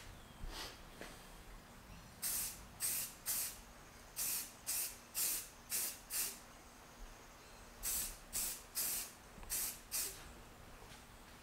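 Aerosol spray-paint can hissing in short bursts, roughly two a second, with a break of a second or so in the middle, as a base coat of paint goes onto metal climbing sticks.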